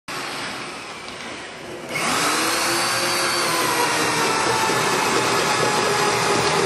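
Corded electric drill driving a ship auger bit, starting about two seconds in and boring down through a wooden wall base plate. Its motor pitch rises as it spins up, then sags as the bit bites into the wood.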